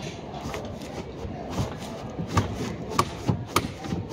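An office workstation partition panel being worked loose from its frame by hand: rubbing and scraping with a run of knocks and sharp clicks, more of them in the second half.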